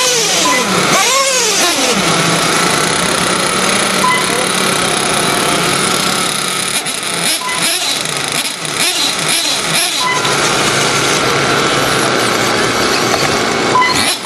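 Several radio-controlled Traxxas Slash short-course trucks racing, their motors whining up and down in pitch as they speed up and slow down, over a steady hiss.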